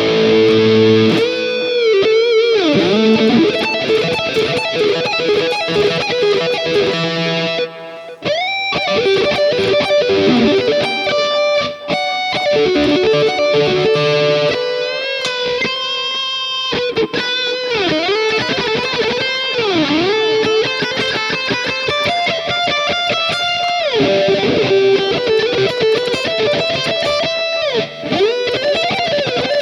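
Distorted electric guitar lead played through a Mooer Prime S1 modeling unit: sustained notes with wide vibrato and bends, fast runs of picked notes in the middle, and a brief break about eight seconds in. The tone sounds a little digital to the player.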